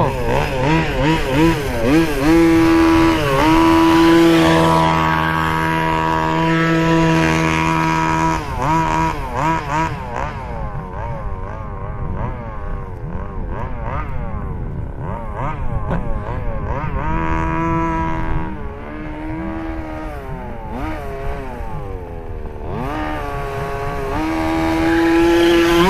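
Small two-stroke gasoline engine of a 1/5-scale RC buggy revving up and down under throttle. It holds steady at high revs for about six seconds, drops to shorter, lower throttle blips, and winds up again near the end.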